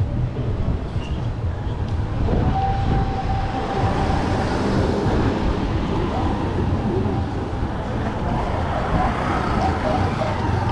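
City street traffic: a continuous rumble of vehicle engines. A steady held tone starts about two seconds in and lasts a few seconds.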